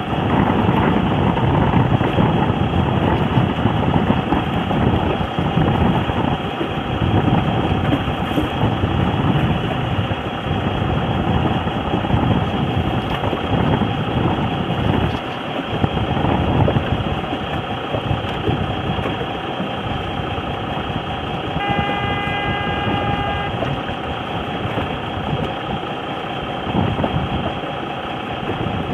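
Wind rumbling on the microphone over a boat engine running. About three-quarters of the way through, a race starting horn sounds once, a single pitched blast about two seconds long.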